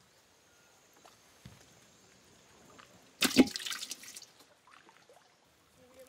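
Mostly faint, with one short burst of water splashing about three seconds in that trails off into running and dripping water for about a second. A few faint drips come before and after it.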